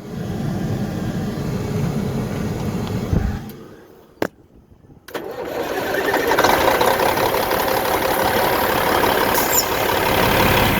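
Diesel truck engine running, cutting out about three seconds in; after a short lull with a single click, it starts and runs again, building up over a second or so.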